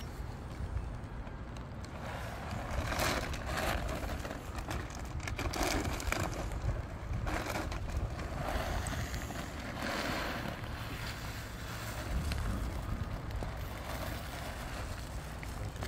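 Large plastic bag of dry cat food crinkling and rustling again and again as it is handled and tipped to pour kibble onto paper plates, over a low steady rumble.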